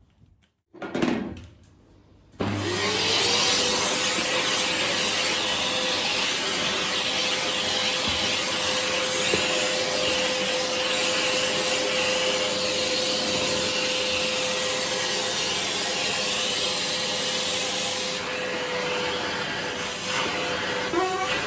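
Vacuum cleaner switched on about two seconds in: its motor whine rises quickly and settles into one steady tone over loud rushing air, sucking dust from inside a gas fan heater. A short knock comes just before it starts.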